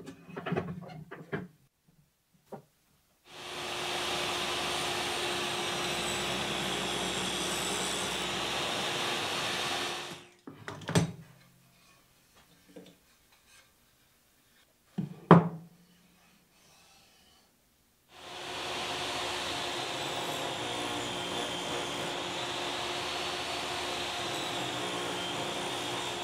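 Table saw running steadily twice for about seven seconds each time, spinning up and winding down at each start and stop. Between the two runs there are two sharp knocks of wood set down on the saw table.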